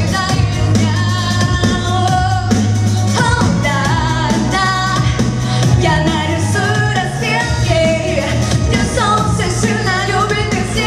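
A woman singing a pop song into a microphone over a backing track with a steady low bass line.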